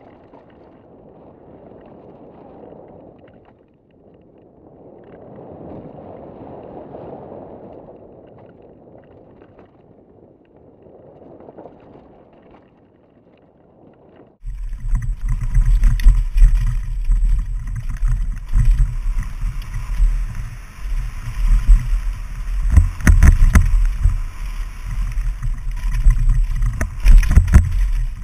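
Helmet-mounted action cameras' recording of a mountain bike descent: wind rush and trail noise, muffled and swelling in the first half. About halfway it cuts abruptly to a much louder camera's track, dominated by heavy low wind buffeting on the microphone with sharp rattling knocks from the trail.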